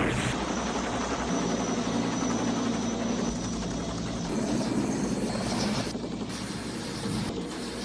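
Helicopter running steadily, its rotor chop and turbine noise holding at an even level.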